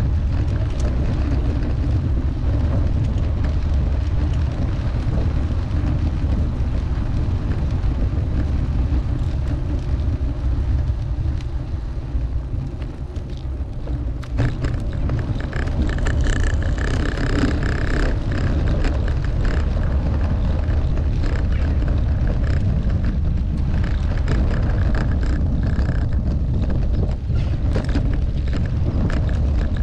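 Steady low rumble of wind and road noise from a camera riding along on a moving bicycle. The level dips briefly about halfway through, and a few faint higher tones come in a little after that.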